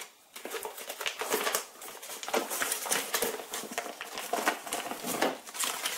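Foil butter wrapper crinkling and rustling in the hands as a block of butter is unwrapped and put into a stainless-steel mixing bowl, with irregular small clicks and knocks.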